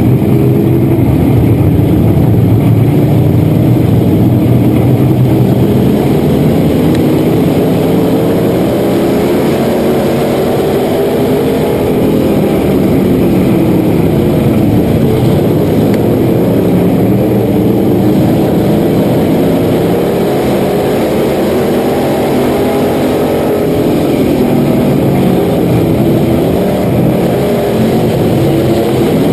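Dirt-track race car engine heard from inside the cockpit, running loud, its revs rising and falling several times as it laps the track, with the other race cars' engines around it.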